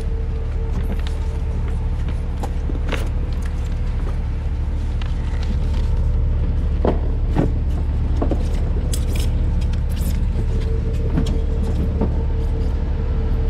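An engine running steadily with a deep, even rumble, with scattered knocks and clatter over it.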